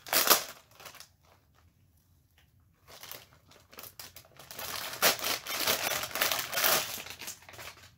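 Packaging crinkling as it is handled: a plastic zip pouch and paper. A short sharp rustle comes first, then a pause of about two seconds, then a longer stretch of crinkling.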